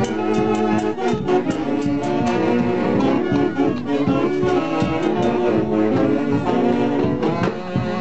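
A live festival orchestra plays dance music: horns carry the melody over a steady beat.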